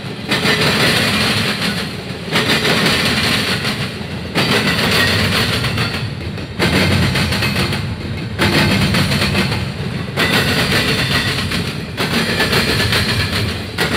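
Double-stack intermodal container train rolling past on well cars, a loud steady rumble of wheels on rail that swells and dips about every two seconds as the cars go by.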